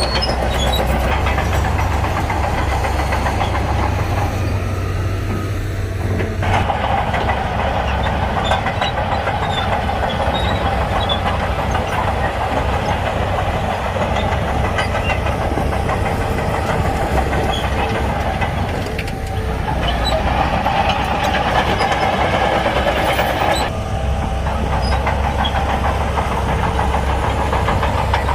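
Shantui crawler bulldozer's diesel engine working under load, with the steel tracks clanking steadily. The engine note shifts about six seconds in and eases briefly twice later on.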